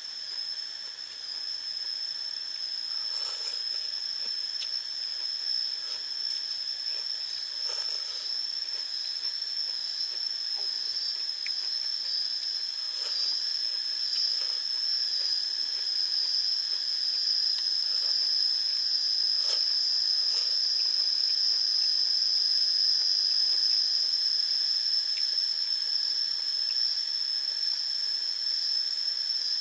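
Insects droning steadily on one high pitch, gradually growing louder, with a few faint light clicks.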